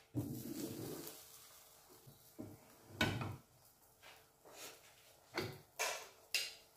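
Nonstick frying pan being shifted on the gas stove's grate, then a spatula knocking and scraping against the pan several times, the loudest knock about three seconds in.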